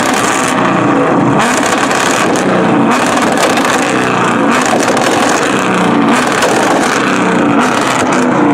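Car engine revving hard again and again, its pitch rising and falling about once a second, with sharp exhaust crackles and pops over it.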